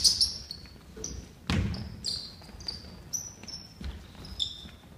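Basketball shoes squeaking on a hardwood gym floor, many short sharp squeaks in quick succession, with the thud of a basketball bouncing on the court about a second and a half in.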